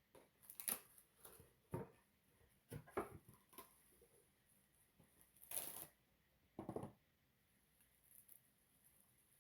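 Plastic cling wrap being pulled out and handled over a bowl, a series of short crinkles and rustles with a longer rasping pull about five and a half seconds in, then a dull knock.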